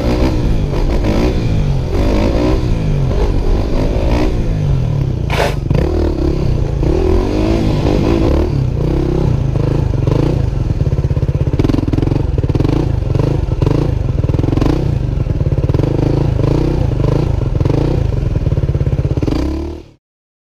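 Dirt bike engine running at low speed while the bike circles tightly around cones. In the second half the engine note rises and falls in a regular pulse about twice a second. The sound cuts off suddenly near the end.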